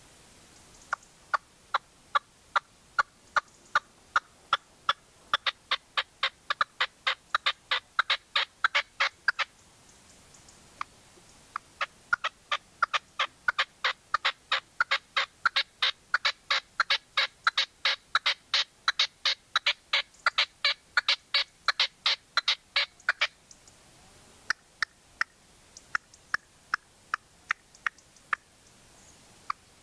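Caged decoy red-legged partridge calling in long runs of short, sharp notes, about two to three a second, in three bouts with brief pauses between them.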